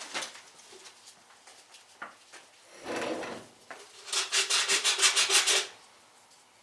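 Rasping strokes of hand abrasive work on a metal front-end part, cleaning up nicks: a short rasp about three seconds in, then a quick run of about a dozen strokes.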